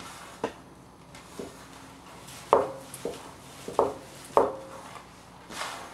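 Hands kneading soaked bulgur (cracked wheat) in a large metal tray, knocking against the tray about five times, each knock with a short metallic ring. The three loudest knocks come in the middle.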